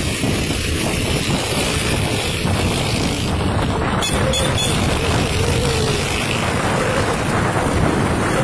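Motorcycle under way on a street: a steady rush of wind and road noise over the bike's running engine.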